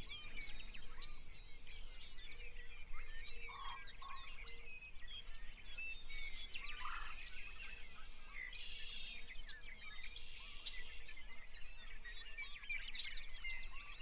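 Many birds chirping and calling together: short, quick, overlapping chirps and trills, with a few lower whistled notes.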